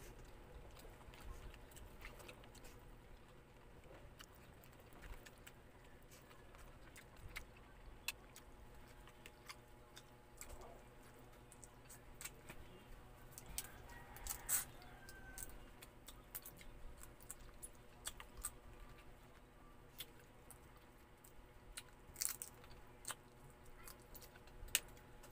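Close-up eating sounds: chewing on boiled crab and shrimp, with scattered sharp cracks and crunches as the shells are peeled and bitten, the loudest about halfway through and near the end.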